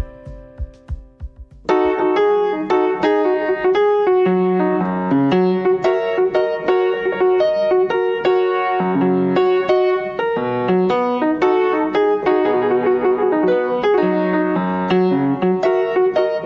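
Instrumental keyboard music with a steady rhythm of repeated notes. It comes in at full level a little under two seconds in, after a quieter passage.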